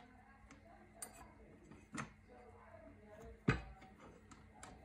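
Small metal clicks and knocks as an Allen wrench and a metal telescope dovetail plate are handled: a sharp click about a second in, a knock at two seconds, and the loudest knock about three and a half seconds in, with faint ticks between.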